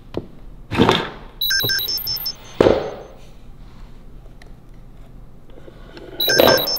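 A wooden drawer is pulled open about a second in. A smartwatch inside it then gives rapid high electronic beeps in two short bursts about four seconds apart, with a single knock between them.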